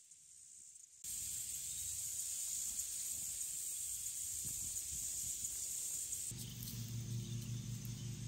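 Outdoor insect chorus: a steady high-pitched buzzing that starts abruptly about a second in. About six seconds in, a low steady hum joins and the buzzing grows fainter.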